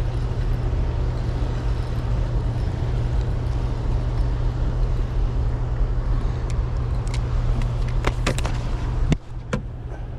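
Steady low wind rumble buffeting the camera's microphone. Near the end come several sharp knocks, and after the loudest, about nine seconds in, the rumble drops away abruptly.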